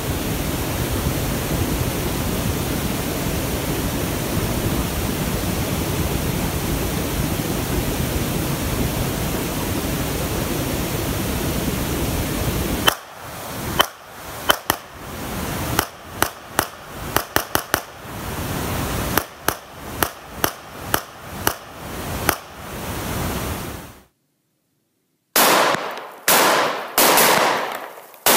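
A steady rushing noise for the first dozen seconds, then a Molot Vepr semi-automatic firing about twenty quick shots over some ten seconds, a few in rapid pairs, emptying a 20-round drum. Near the end more loud shots follow after a brief break.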